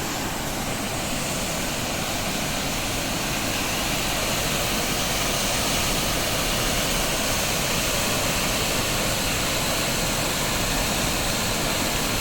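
Waterfall rushing in a steady, even roar, swelling a little over the first few seconds.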